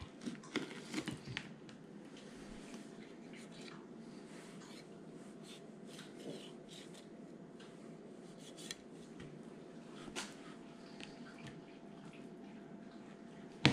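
Gerber fillet knife trimming the belly meat off a coho salmon fillet: faint scrapes and light clicks of the blade against the fish and the mat, with a sharper click near the end.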